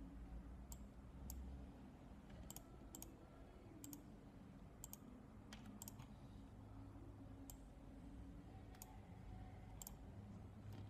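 Faint computer mouse clicks, about a dozen at uneven intervals, as digitizing points are placed one by one along a shape in embroidery software. A low steady hum sits underneath.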